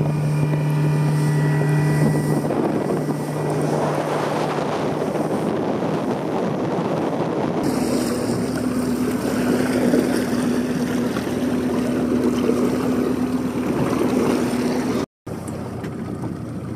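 A 90 hp outboard motor running at speed, with a steady drone over the rush of water and wind on the microphone. The drone changes pitch abruptly about eight seconds in. Near the end the sound cuts out for a moment and comes back quieter.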